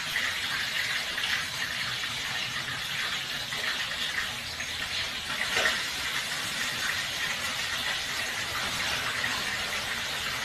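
Steady rushing of running water, with a short falling squeak a little past halfway.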